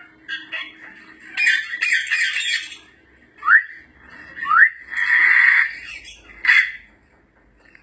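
African grey parrots calling: harsh squawks, with two short whistles sweeping upward in the middle, then another squawk.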